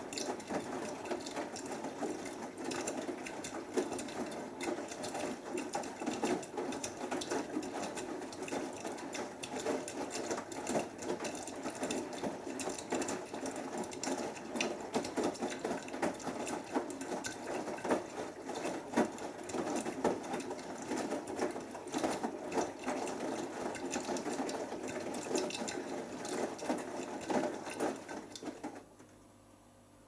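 Beko WMB81445L front-loading washing machine in the main wash of a 60 °C cotton cycle with extra water: the drum turns the load, with water and laundry splashing over the steady running of the drive motor. The drum stops suddenly about a second before the end.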